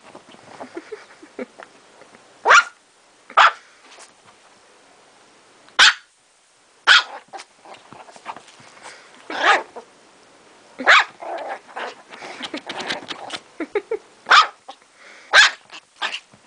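Chihuahua barking in short, sharp yaps, about eight loud ones spaced unevenly, with quieter sounds between them.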